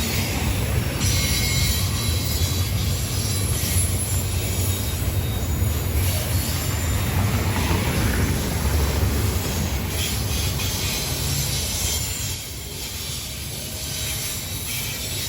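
Intermodal freight train's cars rolling past, a steady rumble of wheels on rails with some high wheel squeal; the rumble eases off about twelve seconds in.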